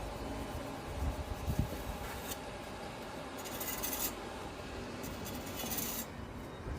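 Trowel scraping and rubbing over a stone repair as the material is worked into shape, with two longer scraping passes about three and a half and five seconds in.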